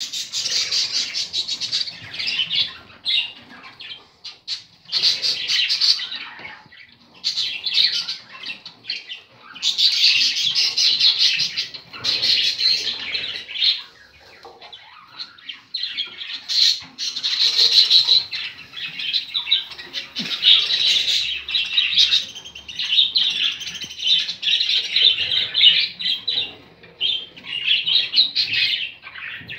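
Budgerigars chirping and squawking in busy bursts of a second or more, with brief lulls between them.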